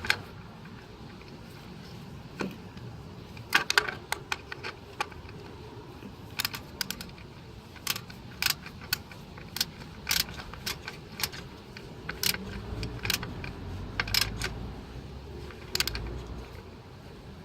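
Irregular sharp metallic clicks and clinks of hand tools and metal parts as a replacement ignition control module (igniter) is fitted by hand. A low rumble runs for a few seconds in the second half.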